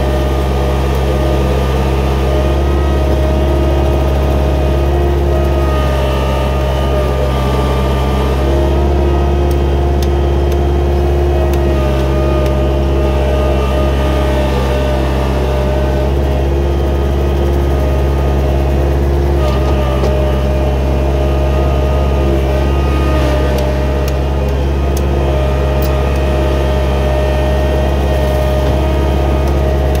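Gehl 4625SX skid steer running steadily at a constant engine speed: a deep, even drone with several steady higher tones over it.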